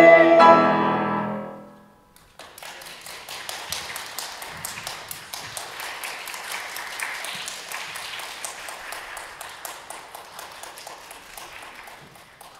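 The final held chord of a mixed choir with grand piano dies away over the first two seconds. After a brief hush the audience applauds, the applause thinning and fading out near the end.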